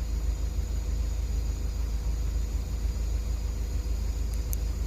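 Steady low outdoor rumble with an even hiss, with two faint short high ticks near the end.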